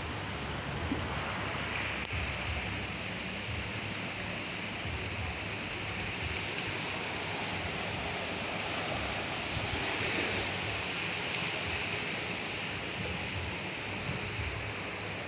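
Sea surf washing on a beach: a steady rushing that swells about two seconds in and again around ten seconds.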